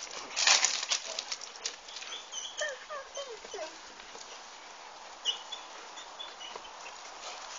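A dog giving a few short falling yelps or whimpers in quick succession, after a burst of clattering and rustling near the start.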